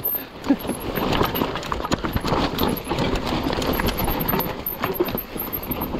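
Mountain bike rolling down a rough dirt trail: knobby tyres crunching over dirt and stones, with a quick, uneven run of knocks and rattles as the bike goes over bumps, growing busier and louder after about a second.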